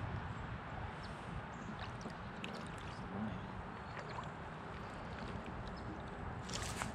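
Steady wash of river water around a drifting raft, with a few faint ticks and a short splash from a paddle near the end.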